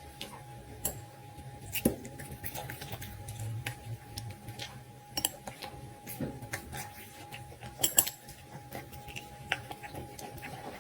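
Dog eating: irregular sharp clicks and crunches of chewing and of food against the bowl, with two louder clacks about 2 and 8 seconds in, over a faint steady high hum.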